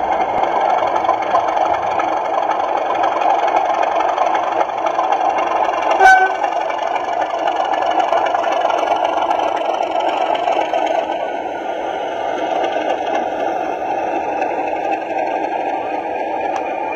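Class 37 diesel locomotive model's DCC sound decoder playing the diesel engine sound through its small onboard speaker as the model runs. The sound is steady and strongest in the middle range with little bass, with a brief louder higher note about six seconds in.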